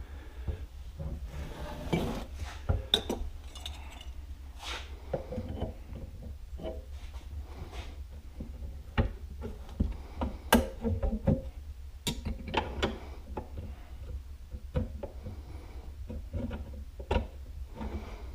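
Scattered metallic clinks and knocks from hand work on a motorcycle front shock absorber, adjuster and coil spring, with a steady low hum underneath.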